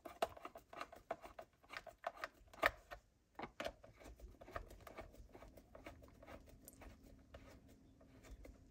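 Screwdriver turning a screw into the plastic housing of an electric pencil sharpener: a run of sharp clicks and ticks for the first few seconds, then fainter, sparser ticking.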